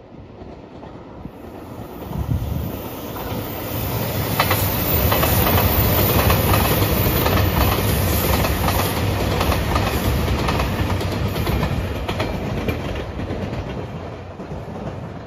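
JR Shikoku 2700-series diesel limited express passing at speed: engine rumble and wheels clicking over the rail joints. It swells from about a second in, is loudest for most of the middle, and fades as the train runs off into the distance.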